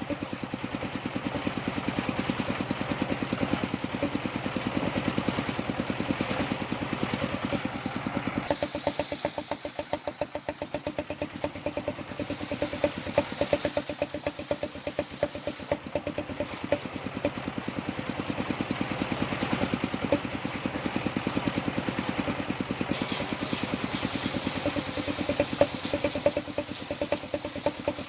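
Sawmill engine idling with a rapid, even chugging pulse, easing off a little partway through and then picking up again.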